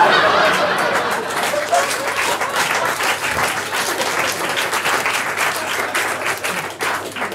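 Audience laughing and applauding after a punchline, a dense patter of many hands clapping. It is loudest right at the start and dies away near the end.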